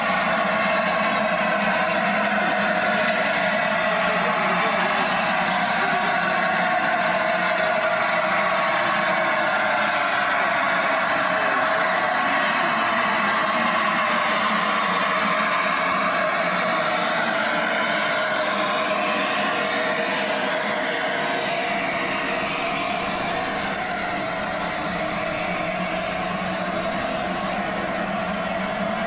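Steady, loud hiss of steam from a standing steam locomotive.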